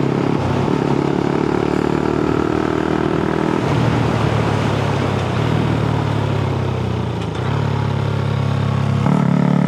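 Honda Grom's 125 cc single-cylinder engine running through a loud modified exhaust that is still above the noise limit. The engine note holds steady, steps down in pitch about four seconds in, and climbs again near the end.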